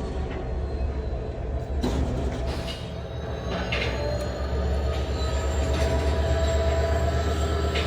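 Railway carriage and machinery during a gauge-change bogie swap: a steady low machine hum that grows louder about halfway through, a few metallic clanks, and a thin, high metal squeal.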